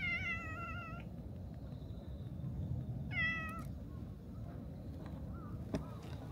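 Tabby cat meowing twice: a call of about a second that falls slightly in pitch, then a shorter meow about three seconds in.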